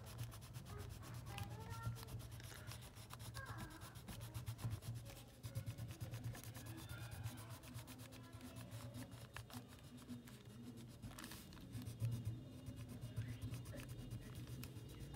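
Green crayon rubbing back and forth on paper as a drawing is coloured in: a run of quick, scratchy strokes over a low steady hum.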